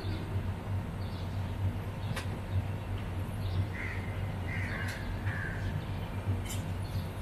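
A crow cawing three times in quick succession about four seconds in, over a steady low hum. A few sharp clicks come from screwdriver work on the air conditioner's terminal block.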